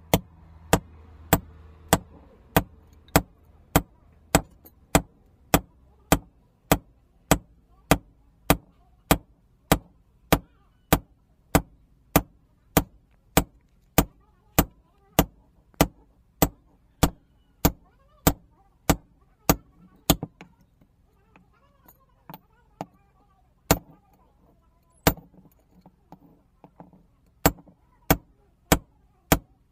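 Sledgehammer blows on a red-hot axe head held on an anvil, sharp ringing metal strikes in a steady rhythm of about one and a half a second. The blows pause briefly about twenty seconds in, then resume at a looser, uneven pace.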